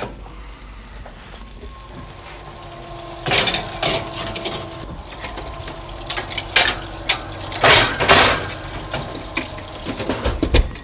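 Metal skillets knocking and scraping against the oven racks and door as pans are slid into and pulled out of a hot oven; an irregular run of sharp clanks begins about three seconds in.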